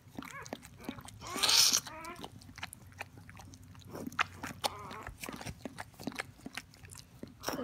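A border collie licking her newborn puppy, with wet smacking clicks throughout and a louder snuffling burst about a second and a half in. Short, thin squeaks from the newborn come through a few times.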